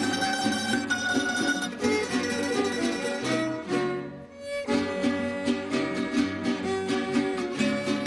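Venezuelan estudiantina string ensemble playing, with violins bowing the melody over plucked bandolas and cuatros. The music thins out briefly about four seconds in, then picks up again.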